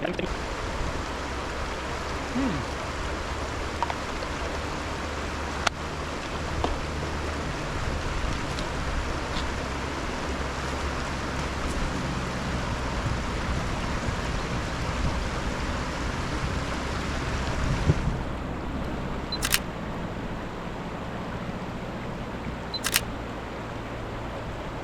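A camera shutter fires twice in the last several seconds, a few seconds apart, over a steady rushing outdoor background of water or wind.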